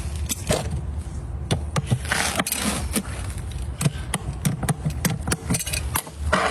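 Farrier's hammer tapping on horseshoe nails in a series of sharp, irregular metal taps, with a scraping sound about two seconds in.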